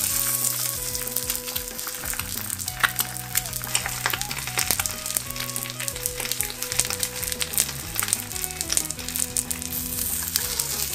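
A Marushin hamburg patty and a fried egg sizzling and crackling in oil in a non-stick frying pan. The sizzle jumps up at the start as the patty is laid into the hot oil, then carries on as a steady crackle.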